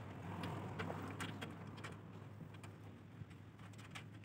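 Faint steady low hum with a few scattered light clicks and taps.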